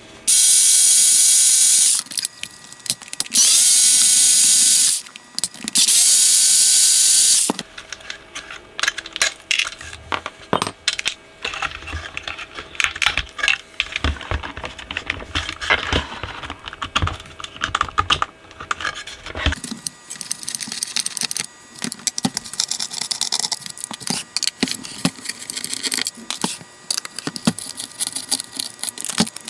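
Electric screwdriver run in three bursts of about two seconds each, whining up to speed and then running steady as it drives out the screws holding an amplifier board. After that comes a long run of small clicks, taps and rattles of screws and sheet-metal parts as the board and chassis are handled.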